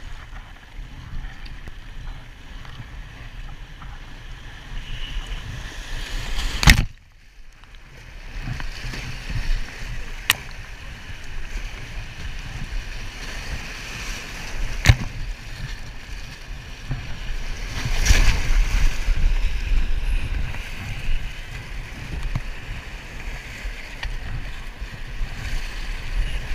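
Whitewater rushing and churning around a kayak running the rapids, with paddle strokes splashing. Several sharp knocks stand out, and the sound drops away briefly just after the first one; the water is loudest about two-thirds of the way through.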